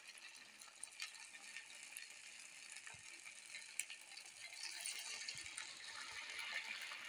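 Sabudana vadas deep-frying in hot oil in an aluminium kadhai: a faint, steady sizzle with small crackles, a little louder in the second half.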